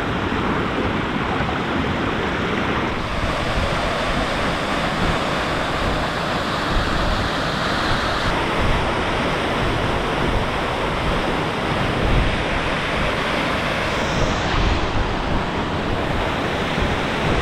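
Steady rush of a waterfall, with a low flickering rumble of wind on the microphone.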